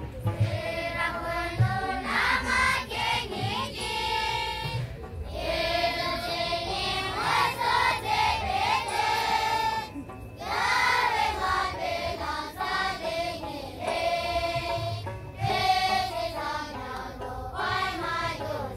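A choir of young monks singing a song together, in phrases with short breaks between them.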